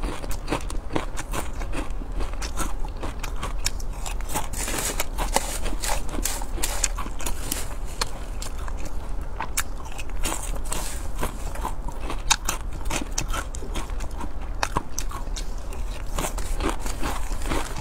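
Close-miked chewing of seasoned silkworm pupae: an irregular run of small crunches and crackles, several a second.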